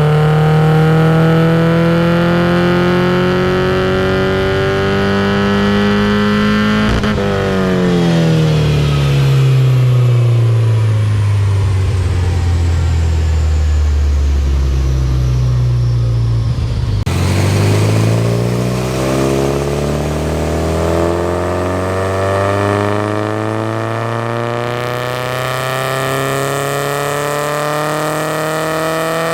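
Porsche 944's 2.5-litre eight-valve inline-four with an equal-length stepped header, pulling through the rev range on a chassis dyno during a tuning run. Revs climb slowly for about seven seconds, fall away for about ten seconds, then climb slowly again in a second pull.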